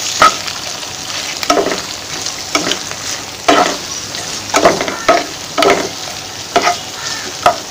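Bottle-gourd peel frying in hot oil in a pan, sizzling steadily, while a wooden spatula stirs and scrapes it about once a second.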